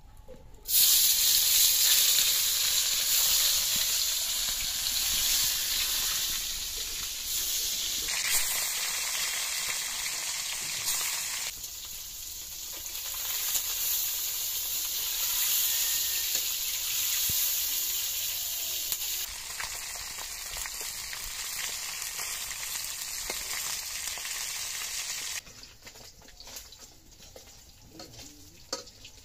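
Turmeric-rubbed snakehead fish frying in hot oil in an iron wok: a loud, hissing sizzle that starts abruptly about a second in as the fish go into the oil. It jumps in loudness several times and drops much quieter near the end.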